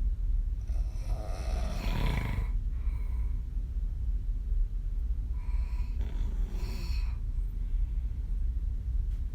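A woman snoring on her back with her mouth open: two long, rasping snores about five seconds apart, over a steady low hum.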